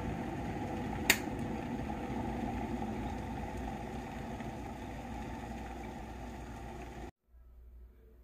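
Electric kettle boiling, a steady bubbling with a sharp click about a second in as it switches itself off. The bubbling carries on, slowly fading, and cuts off suddenly near the end.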